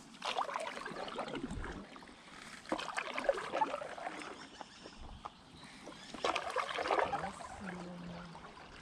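A stand-up paddle board's paddle stroking through river water: three splashing strokes about three seconds apart.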